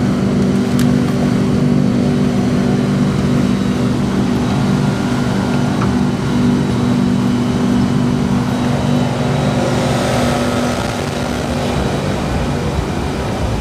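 Steady electric hum of an MRT train standing at the station platform, several low tones held level. The hum eases after about ten seconds as a higher hiss swells.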